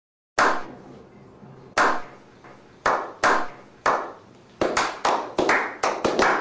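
A slow clap: single hand claps, at first more than a second apart, coming faster and faster as more hands join in. Each clap is followed by a short echo.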